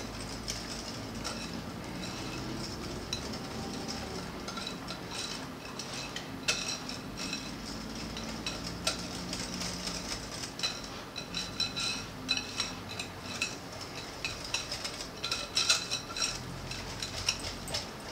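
Wire whisk beating thick pumpkin pie filling in a glass mixing bowl, stirring the spices in, with the wires ticking and clinking rapidly against the glass. The clinks grow more frequent and sharper from about halfway through.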